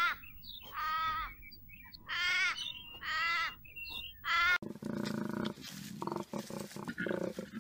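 A kangaroo giving short pitched calls, five of them about a second apart. A little past halfway this gives way to a koala bellowing, a low pulsing call made of rapid pulses that runs on.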